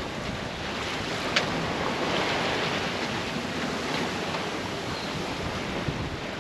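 Water rushing and splashing along a sailboat's hull as it sails fast downwind, with wind buffeting the microphone. One short click comes about a second and a half in.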